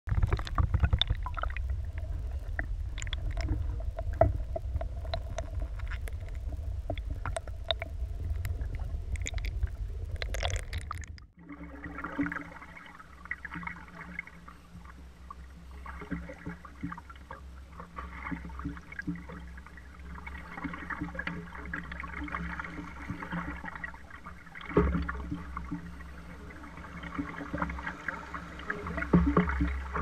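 Underwater sound of river water rushing past a canoe: a low rumble full of crackling clicks, cutting off suddenly about eleven seconds in. Then, above water, the flow of a shallow river riffle around the canoe with paddle strokes, and a couple of louder knocks near the end.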